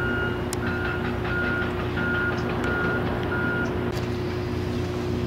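Heavy construction equipment's reversing alarm beeping about twice a second, stopping a little before the end, over the steady drone of a diesel engine.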